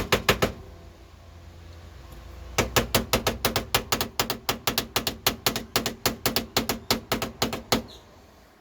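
Small hammer tapping rapidly and lightly on metal, about five quick strikes a second. There is a short run at the start, a pause of about two seconds, then a longer run that stops shortly before the end.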